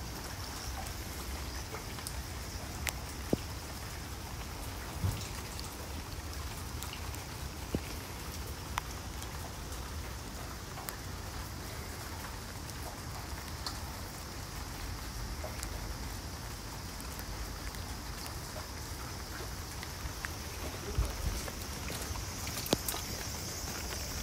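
Rain falling steadily, an even hiss with scattered drops tapping on a surface and a few louder taps.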